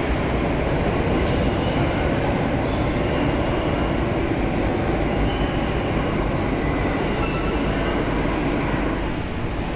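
Metro trains in an underground station: the steady rumble of steel wheels on track, echoing, with a faint intermittent wheel squeal.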